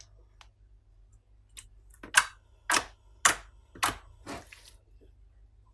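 Fingers poking a clear slime base, making about six sharp pops roughly half a second apart, beginning a little over a second in.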